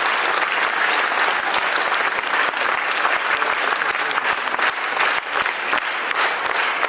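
Theatre audience applauding, a steady dense clapping that runs on without a break.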